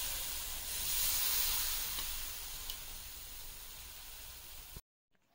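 Boiled milk sizzling and hissing as it is spooned onto hot, roasting semolina in a frying pan; the sizzle slowly dies down, then cuts off abruptly near the end.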